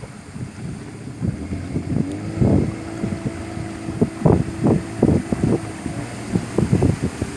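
Outboard motor of a wooden river longboat running under way, its pitch rising a little about two seconds in, with wind buffeting the microphone in uneven gusts.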